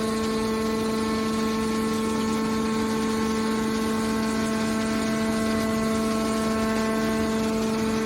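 Hydraulic scrap metal baler running, a steady machine hum with a whine from its hydraulic pump that holds one pitch.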